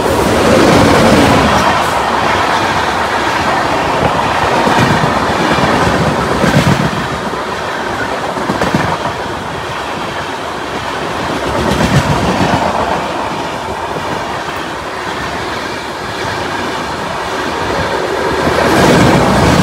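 The Nanded Superfast Express passes at speed on the adjacent track, first its electric locomotive and then a long rake of coaches rushing by close. It makes a loud, continuous rumble and clatter of wheels on rail that swells and eases every few seconds as the bogies go by.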